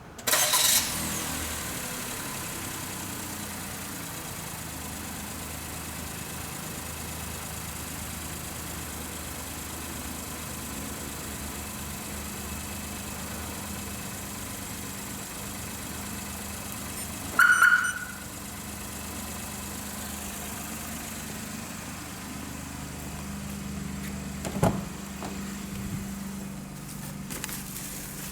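Daihatsu Wake's 660 cc three-cylinder engine cranking and catching on a remote starter, then idling steadily. A short loud beep comes about two-thirds of the way through, and a sharp click a few seconds later.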